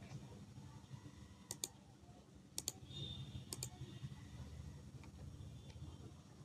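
Computer mouse button clicks, each a quick press-and-release double click, three times about a second apart, over a low steady hum.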